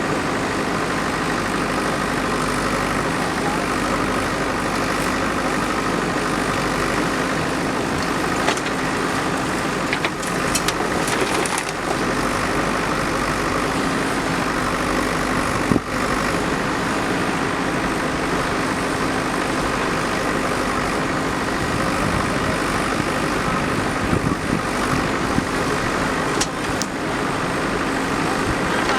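Backhoe loader's diesel engine running steadily, with a few short knocks now and then.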